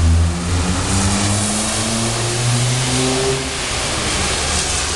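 An engine running, its pitch shifting up and down in steps for the first few seconds and then fading, over a steady hiss.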